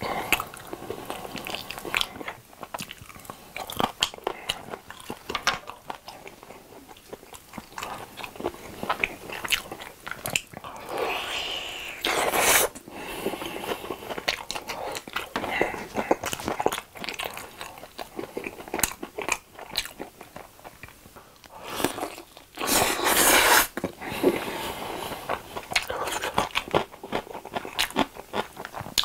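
Close-up chewing and biting of glazed fried chicken drumsticks, with many short clicks and smacks from the mouth. There are two longer, louder stretches of noise, about eleven and twenty-three seconds in.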